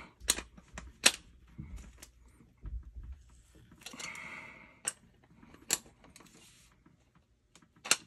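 Metal clicks and clinks of an adjustable wrench working the threaded pipe fittings on a new gas valve as they are tightened. There is a short scraping rub about four seconds in.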